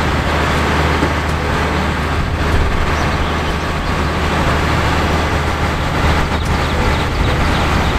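Diesel engine of a concrete mixer truck with a pump boom, running steadily with a deep, even hum.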